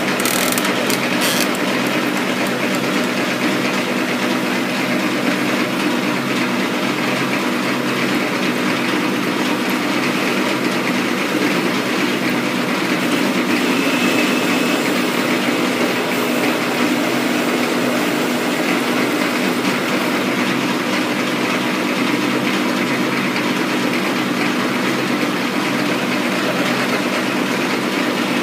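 Metal lathe running steadily with a spinning four-jaw chuck, its drive giving a constant hum, while the tool takes a light hand-fed cut to put a small radius in the corner of an R8 tooling blank under flowing coolant.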